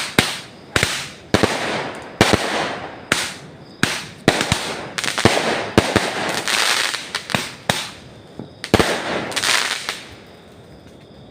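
Fireworks going off in a rapid series of sharp bangs, one or two a second, each trailing off in crackle. The bangs stop about ten seconds in.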